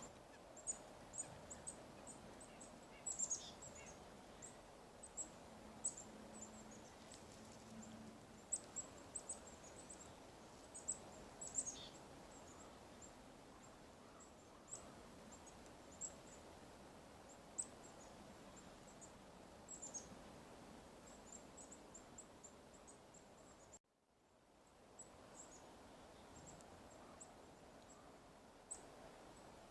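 Chickadees calling faintly, many short, high chips and thin notes scattered throughout, with a few longer falling notes.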